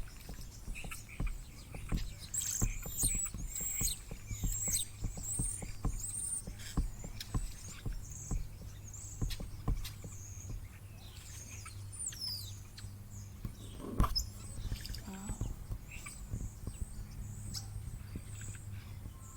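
Backyard birds chirping: a run of short, high chirps, busiest about two to five seconds in and again near the middle, mixed with many light taps and clicks. A steady low hum lies underneath.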